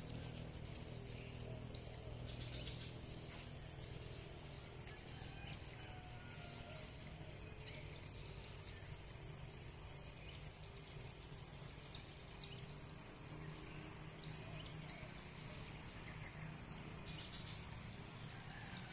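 Steady, high-pitched insect chorus, with scattered short bird chirps and whistles over it.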